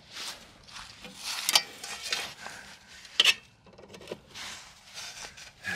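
Handling noises as a red extension cord is dragged over dry grass and plugged into a campsite power post: irregular rustling and scraping, with a sharp click about three seconds in.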